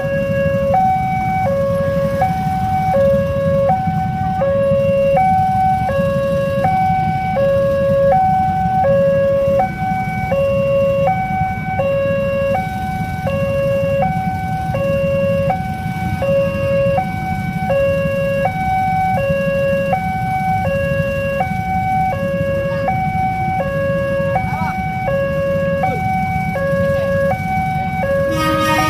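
Electronic warning alarm of a railway level crossing sounding from its pole loudspeaker: two tones, one high and one low, taking turns in an even, repeating pattern, signalling that a train is approaching and the crossing is closed. A steady low rumble of waiting traffic runs underneath.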